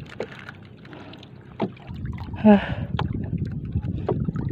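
Water lapping against a small outrigger fishing boat, with a few sharp knocks. A brief vocal sound comes about halfway through and is the loudest thing heard.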